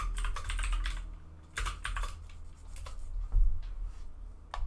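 Typing on a computer keyboard: quick clusters of key clicks, with a low bump about three and a half seconds in.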